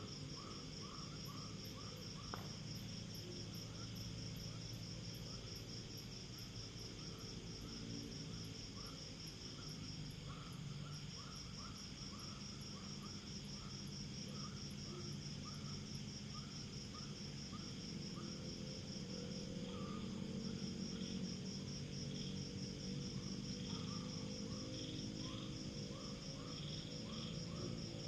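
Night chorus of insects: a continuous, rapidly pulsing high trill together with a slower series of repeated chirps, over a low steady hum.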